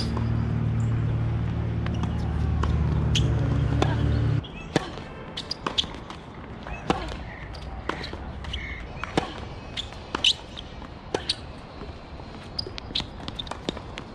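A steady low hum, like a motor running, cuts off suddenly about four seconds in. After it come scattered sharp pops of tennis balls bouncing and being struck by racquets.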